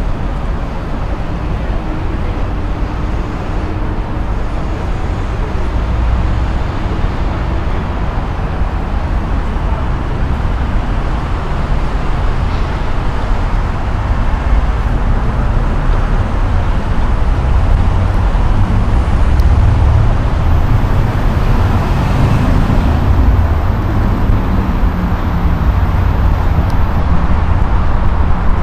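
Steady low rumble of outdoor waterfront noise, heaviest in the bass, slowly growing louder.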